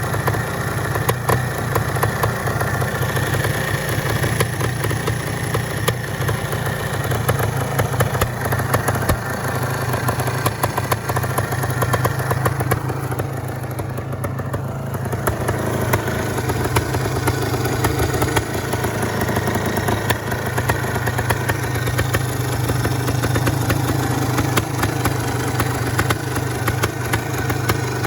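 Yamaha DT 400 MX two-stroke single-cylinder engine idling steadily, slightly softer for a couple of seconds about halfway through. The owner judges the engine to be in fairly good condition.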